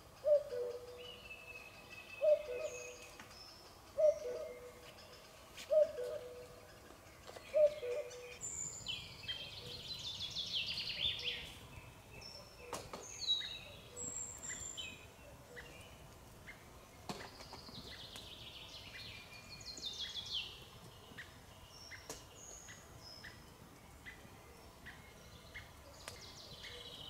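Woodland birds calling and singing. A low two-note call repeats about every two seconds for the first eight seconds, then a songbird gives two long trilled songs that fall in pitch, with scattered high chirps and faint regular ticking calls.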